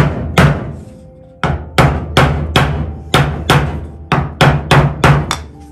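Hammer blows on a wooden block held against the edge of a steel replacement roof panel, which is being shaped to the roof's curve. Two sharp strikes are followed by a short pause, then about a dozen more at roughly three a second, each with a short ring.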